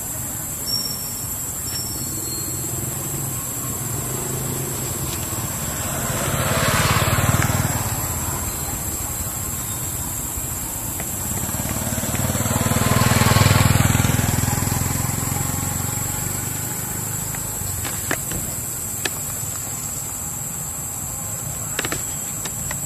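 Two motor vehicles driving past one after the other, each swelling up and fading away over a few seconds, about six seconds apart, over a steady high-pitched hiss.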